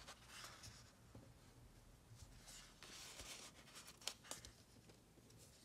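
Faint scratching and rustling of metal tweezers picking a small dot sticker off a paper sticker sheet, with a few small ticks about four seconds in.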